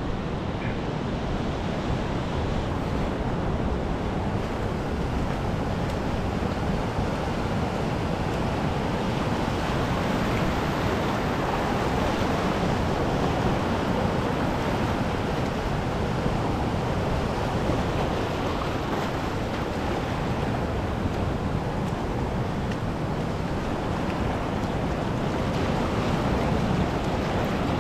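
Ocean surf washing over a rocky shore platform: a steady, even rush of water with no distinct breaks, with some wind on the microphone.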